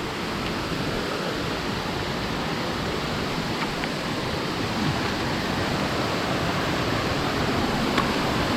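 Steady rush of water running and falling down the rock from many small trickles and falls at once, growing slightly louder toward the end.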